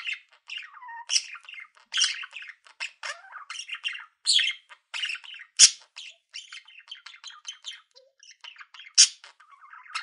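Budgerigars chattering: a rapid, warbling run of chirps and squeaky squawks, with two louder sharp calls, about halfway through and near the end.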